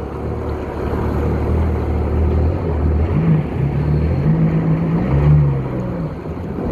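Jet ski engine running at low speed, its pitch rising and falling from about three seconds in as the throttle is eased on and off.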